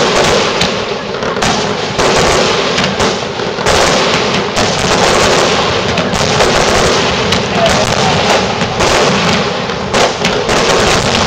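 Aerial fireworks shells bursting in a rapid, overlapping barrage of bangs and crackle, loud and nearly without pause.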